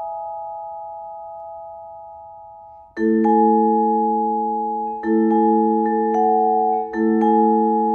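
Solo vibraphone: a ringing chord slowly fades away, then about three seconds in a lower, fuller chord is struck and struck again about every two seconds, each time left to ring.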